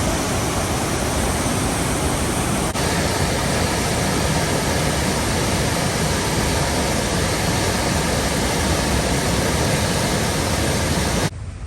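Floodwater of the Bagmati River rushing through a deep gorge: a steady, loud rush of water that cuts off abruptly near the end.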